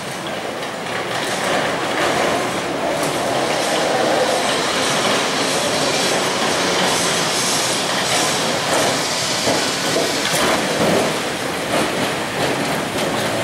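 Carris historic tram no. 722 running on street rails toward the listener and passing close: wheels rumbling and clattering over the track and points, with wheel squeal, getting louder over the first couple of seconds.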